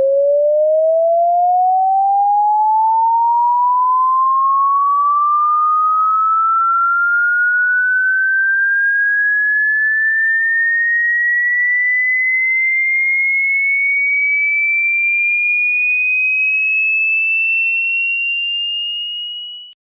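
Electronic sine-wave tone sweeping slowly and steadily upward in pitch, from a mid tone to a high, piercing one, then fading out quickly near the end.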